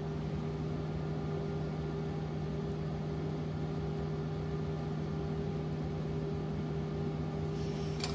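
Steady machine hum with an even fan-like hiss from the ultrasonic welding equipment standing idle, no welding taking place; a sharp click comes right at the end.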